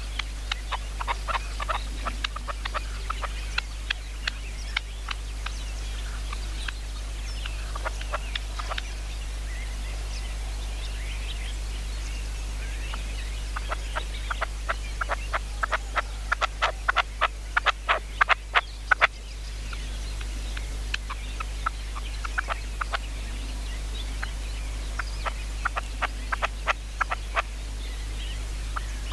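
Red-legged partridges calling in rhythmic series of short, rapid clucking notes. A fast, loud run about two-thirds of the way through breaks off suddenly, and the calling starts again near the end.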